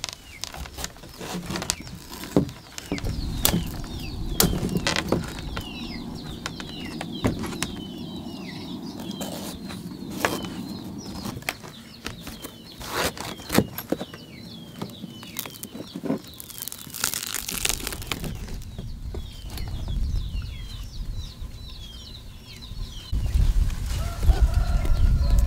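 Chickens: repeated short high peeping and clucking, with scattered sharp knocks, and a louder low noise rising near the end.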